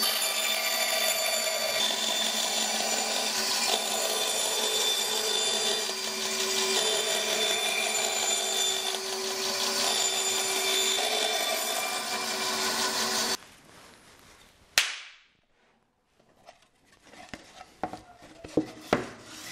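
Bandsaw running and cutting a circle in quarter-inch OSB, a steady sound with several held tones, which stops abruptly about 13 seconds in. A sharp knock and a few light handling clicks follow as the cut disc is moved.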